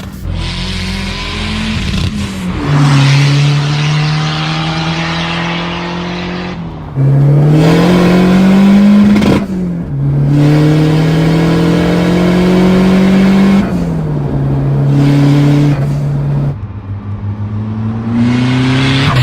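Tuned Fiat Uno Turbo i.e. 1.3-litre turbocharged four-cylinder engine pulling hard under load, its revs climbing and dropping several times. The throttle is opened sharply about 7 and 10 seconds in, it comes off load with a spell of crackling about 16.5 seconds in, and it climbs again near the end.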